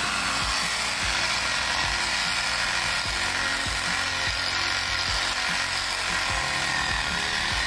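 Chainsaw running steadily.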